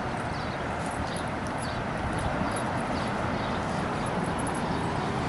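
Footsteps on a concrete sidewalk: light, sharp clicks a few times a second over a steady hiss of street traffic.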